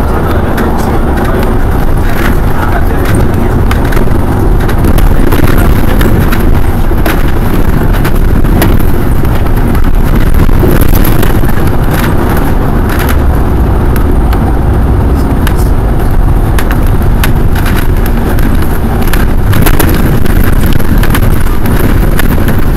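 Loud, steady rumble of a moving city bus from inside, with frequent rattles and clicks.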